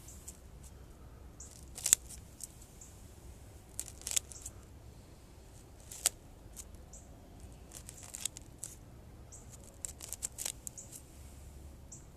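Scissors snipping through the roots of a parrot's beak bonsai during root pruning: a series of sharp, irregular snips a second or two apart, the loudest about two seconds in.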